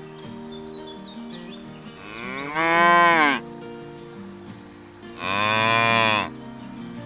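Cattle mooing: two loud, drawn-out moos, each a little over a second long, the first bending up and then down in pitch, the second about two seconds later.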